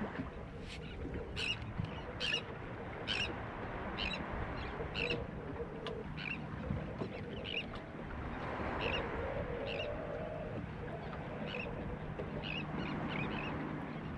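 Birds calling in short, high notes repeated about once a second, over a steady background hiss.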